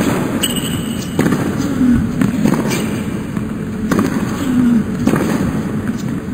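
Tennis rally on a hard court: sharp racket-on-ball strikes about every second or so, with a player grunting on every other shot, over a steady background hum of arena noise.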